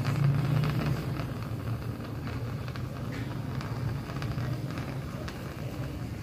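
A low, steady mechanical hum with scattered faint clicks.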